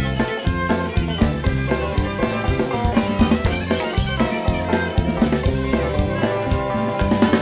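Live bluegrass band playing an instrumental passage: banjo picking over a drum kit keeping a steady beat.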